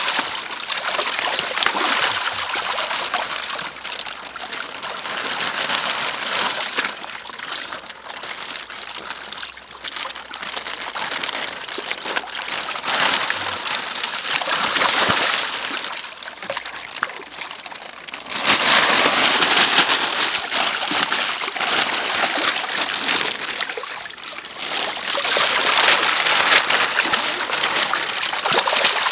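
Water splashing and churning as harvested koi thrash in the shallow water of the net, steady but uneven, growing louder about 18 seconds in and again near 25 seconds.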